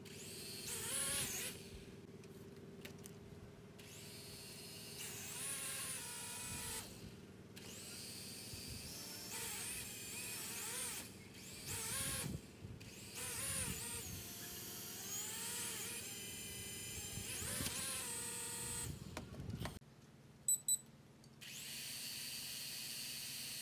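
Motors of a small toy quadcopter whirring in repeated bursts, speeding up and slowing down as the controller's throttle is worked. Near the end there are two short beeps, then a steady whine.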